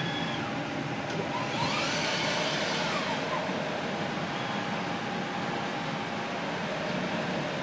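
Robot arm of an automated lab workcell whining as its motors speed up and slow down, the pitch rising and then falling with each move, over a steady hum of running lab equipment. The largest move comes about a second and a half in and lasts about a second and a half.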